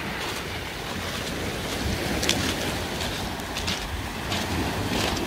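Rough sea surf breaking and washing up over a pebble beach, a steady rushing wash of water.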